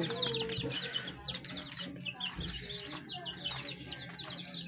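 A cage full of lovebirds chattering without pause, with many short, high chirps overlapping.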